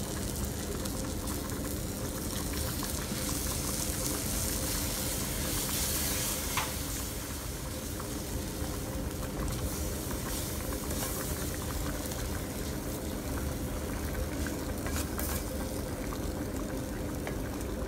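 Béchamel sauce of flour, milk and sautéed vegetables bubbling and sizzling steadily in a frying pan, stirred with a wooden spoon, with a few faint clicks.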